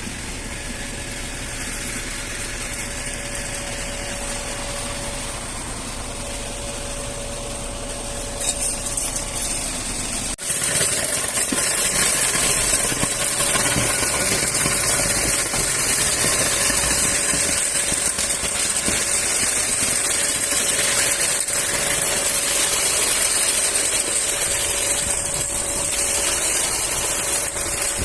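Engine of concrete-pouring machinery running steadily, with a steady whine through it. About ten seconds in it suddenly becomes louder and hissier.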